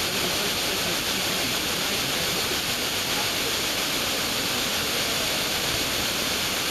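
Steady hiss of FM radio static from an SDR receiver, with the aircraft-scatter signal of the distant station faded into the noise.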